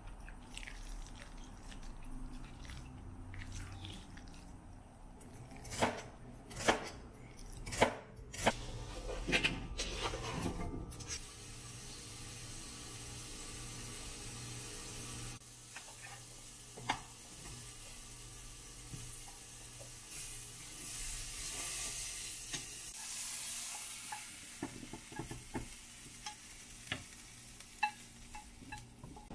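Sharp clinks of utensils against crockery and cookware, then a vegetable stir-fry sizzling steadily in a frying pan with scattered taps and scrapes of a utensil. The sizzle is strongest about two-thirds of the way through.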